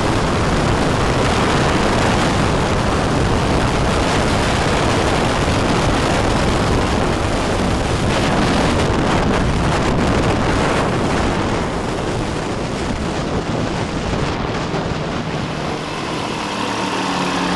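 Wind buffeting the onboard microphone over the weight-shift microlight's engine as it lands and rolls across grass. Near the end the wind noise drops away and the engine is heard idling as a steady hum.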